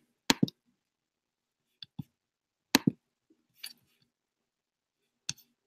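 Sharp computer clicks, about eight of them, some in quick pairs, spaced irregularly over several seconds.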